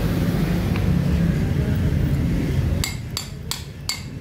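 A low engine rumble drops away almost three seconds in. Then a hammer taps metal about three times a second with a clear ring, driving a tight-fitting bearing onto a rack-and-pinion steering gear's pinion shaft. The ringing taps are the sound the mechanic takes to mean the bearing has gone home.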